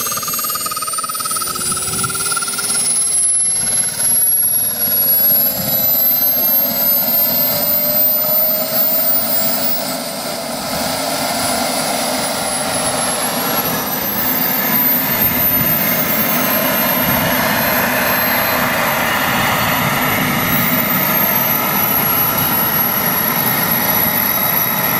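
The two small jet turbine engines of a large radio-controlled A-10 model running: a steady rush with high whistling tones that rise, dip about midway and then hold steady.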